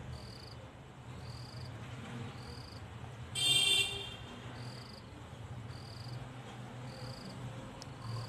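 A cricket chirping in short high-pitched pulses about once a second over a low steady hum. About three and a half seconds in, a brief, louder high-pitched sound cuts in for under a second.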